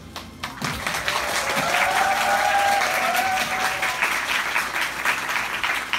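Audience and cast clapping, with dense applause building about half a second in.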